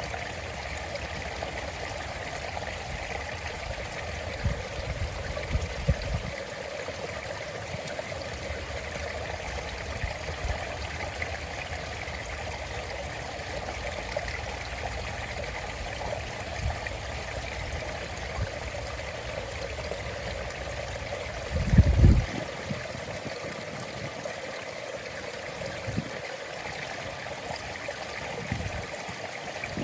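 A stream running in a steady, continuous rush of water. A few brief low thumps come around four to six seconds in, and a louder low rumble about 22 seconds in.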